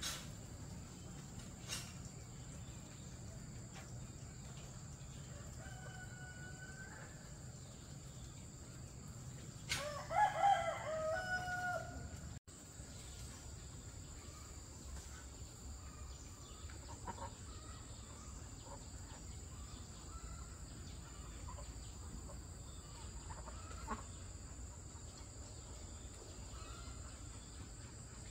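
A rooster crows once, about ten seconds in, a single call lasting a couple of seconds, over a steady high-pitched insect drone. Faint scattered bird calls come and go around it.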